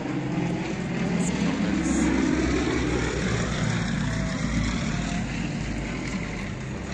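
Aircraft engine drone that swells about a second in, rising slightly in pitch, then slowly eases, with a low rumble underneath.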